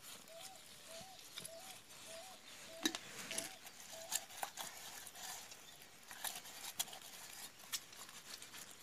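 Faint scrubbing and scraping inside the metal motor housing of a dismantled Anauger vibrating well pump, with small clicks of metal parts. A faint high chirp repeats about twice a second through the first few seconds.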